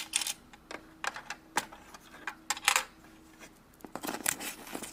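Toy play coins clicking and clinking as they are put one by one into the open cash drawer of a toy cash register: a scattered series of small, sharp clicks.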